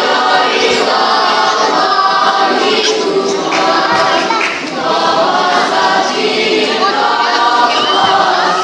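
A choir singing in held, sustained notes, with short breaks between phrases.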